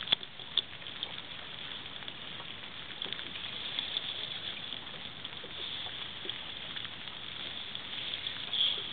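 Steady wind and water noise, with two sharp clicks in the first second and a brief louder rustle near the end.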